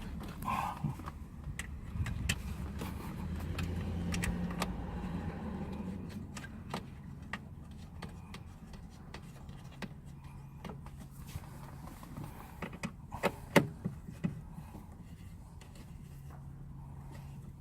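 Scattered small clicks and metallic clinks of screws and interior trim being fitted by hand, over a low steady hum, with one sharper click about thirteen seconds in.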